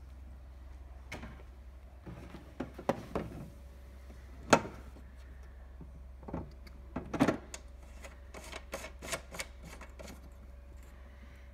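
Clicks and knocks of the steam cleaner's plastic accessories box being set into its seat on the driving handle and fastened there, with the loudest sharp knock about four and a half seconds in and a quick run of light clicks near the end, over a steady low hum.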